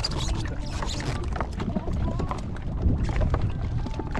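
Wind rumbling on the microphone and water slapping against a small drifting craft, with scattered short knocks and splashes and faint voices underneath.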